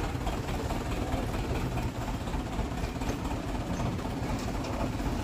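Truck engine running steadily at low speed, a continuous low rumble, as the truck creeps forward.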